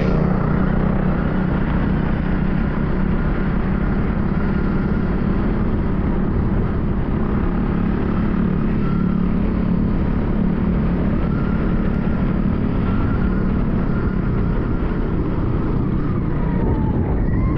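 Steady wind buffeting on the on-board camera of a Stark Varg electric motocross bike riding across beach sand, with a faint wavering whine over it.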